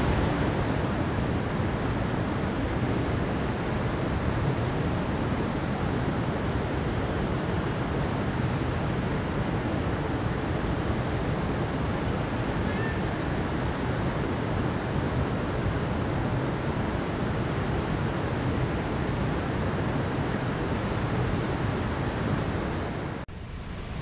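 Steady rush of a forest stream flowing over rocks and a small cascade. About 23 seconds in it cuts abruptly to a quieter rush of water.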